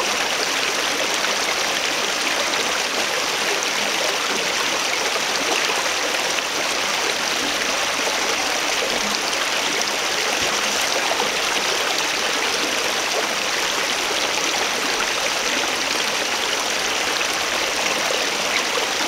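Shallow stream of water running steadily over a muddy bed, a constant even rush with no pauses.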